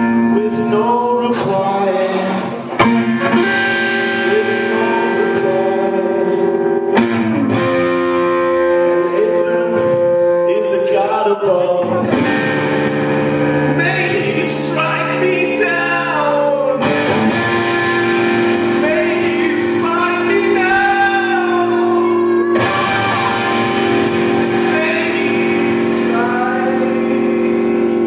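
Live rock band playing a song: electric guitar, electric bass and drums, with the guitarist singing lead vocals.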